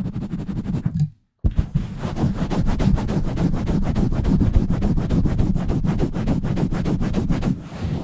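Fingers scratching, rubbing and pumping fast over a foam windscreen on a Blue Yeti microphone: a dense, rough run of quick strokes with heavy low rumble. It cuts out to silence briefly just after a second in.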